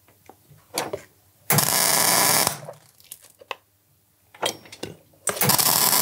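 Two short bursts of electric arc welding, each about a second long, the second near the end: tack welds on the motorcycle's exhaust pipe, with a few light knocks of handling between them.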